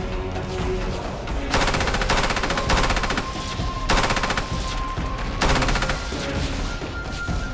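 Tripod-mounted heavy machine gun firing several short bursts of rapid shots, with background music holding steady tones underneath.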